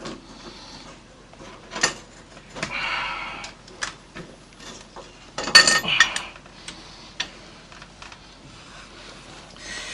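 Metal tools and motorcycle steering-head parts clinking and knocking during hands-on work on the steering stem, with a few short scraping noises in between. The loudest cluster of clinks comes about halfway through.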